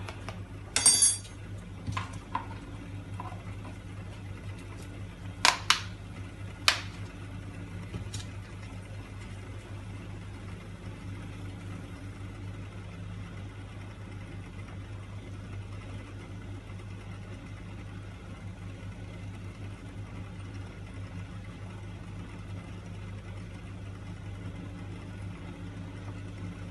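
A pot of kadha (herbal decoction) simmering on the stove, with a steady low hum. A few sharp metallic clinks come in the first eight seconds, the first ringing briefly.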